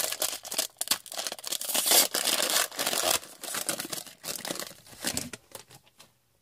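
Foil wrapper of a hockey card pack crinkling as it is torn open and handled, a dense crackle that dies away near the end.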